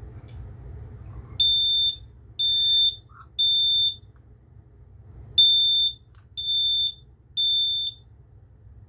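Smoke alarm sounding on its test button: two rounds of three loud, high-pitched beeps, each about half a second long, in the standard temporal-three evacuation pattern.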